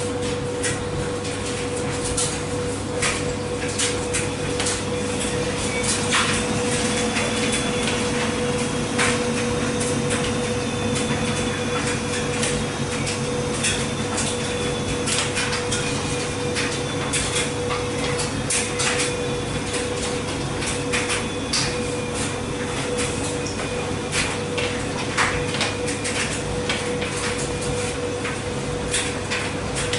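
Speed Queen front-loading washer tumbling a load of laundry in its drum: a steady hum and rumble with irregular knocks and clicks as the laundry drops against the drum.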